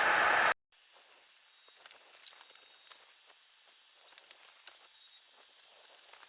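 A heat gun blows loudly for about half a second, then cuts off abruptly. After that there is only a faint steady hiss with scattered small ticks and crackles.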